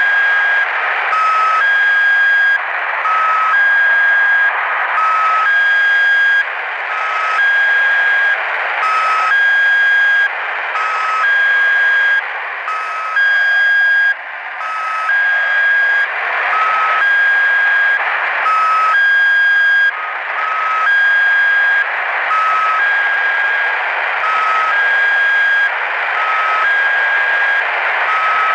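The Squeaky Wheel (S32) shortwave channel marker received in upper sideband on a Grundig YB 500 portable radio: two short tones of different pitch in quick succession, repeated with a short gap about every two seconds, over a steady hiss of band noise.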